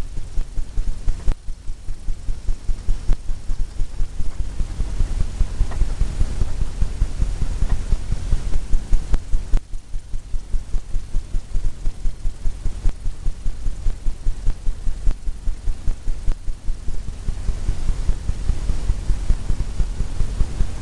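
Paintbrush dabbing and tapping against a stretched canvas, making a steady run of dull low thumps, about three or four a second, with a couple of brief pauses.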